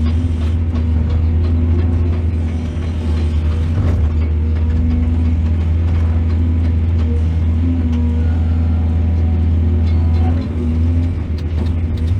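A heavy diesel engine of an earth-moving machine running steadily with a deep, constant drone, with a few faint knocks and a short dip in level about ten seconds in.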